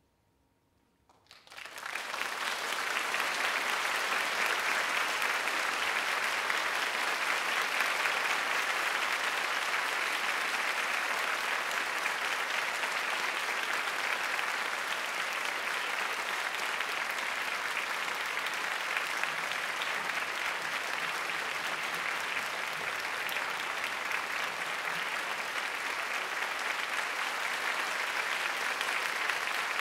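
Theatre audience applauding, breaking in about a second and a half in, swelling quickly, then holding steady.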